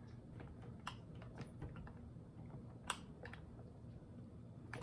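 Small hand screwdriver turning a self-tapping screw into a chainsaw body: faint, scattered small clicks and scrapes, with one sharper click about three seconds in.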